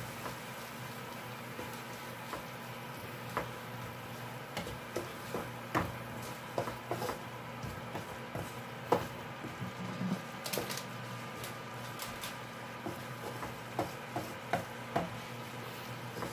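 A wooden spatula stirring and scraping sardines and onions around a metal frying pan, with irregular knocks and scrapes against the pan over a faint sizzle.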